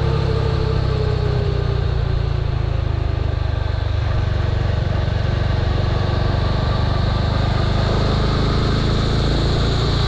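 Motorcycle engine running steadily on the move, its note easing slightly lower in the first couple of seconds, under a steady rushing hiss of wind and road noise.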